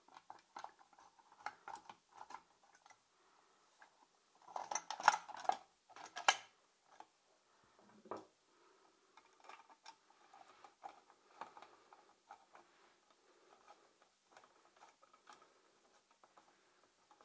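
Hands fitting a plastic pull-start housing onto a small two-stroke engine: scattered light clicks and knocks of plastic against metal, with a louder run of clatter about five seconds in and a sharp knock a second later.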